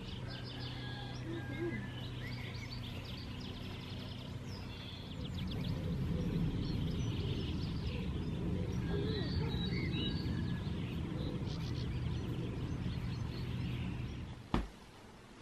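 Small birds chirping and trilling in a garden over a low rumbling background that grows louder about five seconds in. A sharp click near the end, after which it goes quieter.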